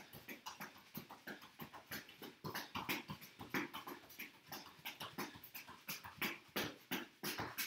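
Soccer ball tapped quickly back and forth between the insides of a person's feet, with shoe scuffs on a floor mat: a run of short, soft taps, irregular, several a second.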